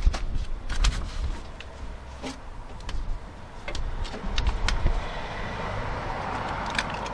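Plastic moisture-barrier sheet on a car door crackling and rustling as it is cut around its clips with a knife and peeled back, with sharp clicks. A steady rushing noise builds in the last couple of seconds.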